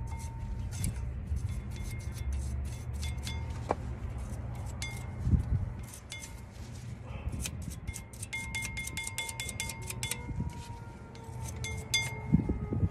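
Rapid, irregular light metallic clicks and scrapes from work on a front disc-brake caliper bracket: the bracket is brushed clean and the pad hardware handled. Faint ringing tones run underneath.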